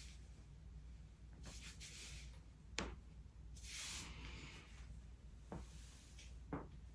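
Joints popping as a person cracks their own neck or back by hand: one sharp crack about three seconds in and two fainter pops near the end, between soft rustles.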